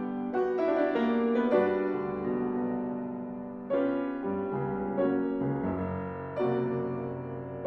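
Background piano music: slow, gentle chords struck every second or so and left to ring and fade.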